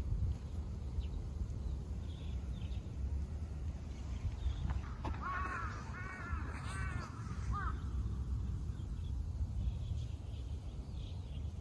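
A crow cawing, a quick run of about five or six harsh calls about halfway through, over a steady low outdoor rumble.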